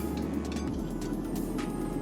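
Gas forge burner running steadily, a low even rush, with a couple of light clicks near the middle.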